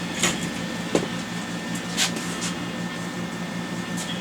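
Steady machine hum with a few short, sharp knocks and clicks.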